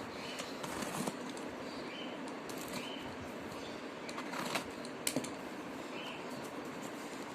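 Delivery package being handled and opened: scattered clicks, rustles and crinkles of plastic and cardboard over a steady low background noise.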